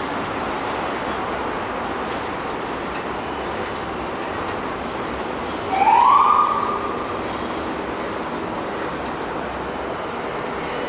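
NYC Subway R188 train running out along the elevated tracks with a steady rumble. About six seconds in, a loud tone rises in pitch, holds, and fades after about a second.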